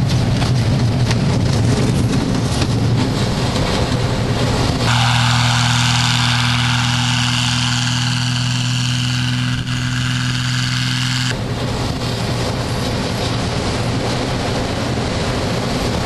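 Light propeller aircraft engine running steadily at high power, with heavy rumbling and wind noise. About five seconds in the sound changes abruptly to a smoother, steadier engine drone with hiss, and about six seconds later the rumbling returns.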